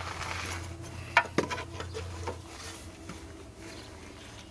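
Metal scraping and clinking as a pry bar works the starter on a vehicle's underside, with two sharp clinks a little over a second in and a few lighter taps after. A steady low hum runs underneath.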